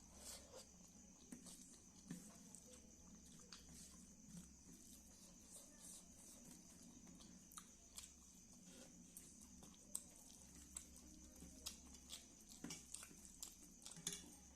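Faint eating sounds: soft, scattered clicks and smacks of chewing, several a second at irregular intervals.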